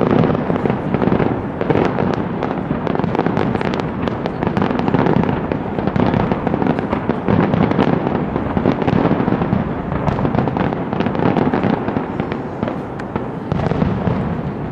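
Fireworks display: a dense, continuous barrage of rapid bangs and crackling from bursting shells.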